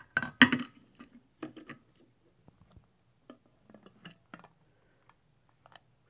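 Clinks and knocks of a glass coffee carafe and its filter basket being handled and fitted together. One sharp knock comes about half a second in, followed by scattered lighter taps.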